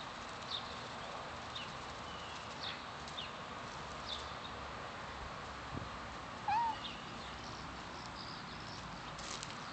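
Domestic cat giving one short meow about two-thirds of the way through, with faint high chirps scattered through the background hiss.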